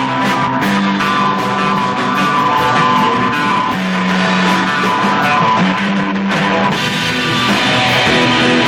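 Rock band playing live and loud: electric guitar chords ringing over drums. The sound is thin, with little bass.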